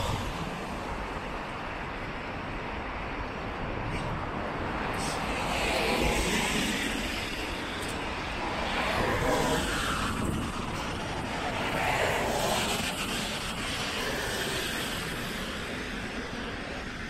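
Cars passing one after another on a wet road, each one a rise and fall of tyre noise every few seconds over a steady traffic hum.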